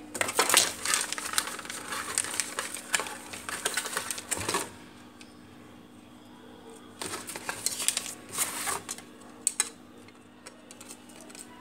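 Clear plastic packaging bag crinkling and rustling as drone propellers are pulled out and handled, in two spells: through the first four and a half seconds and again from about seven to nine seconds, with a few sharp plastic clicks just after.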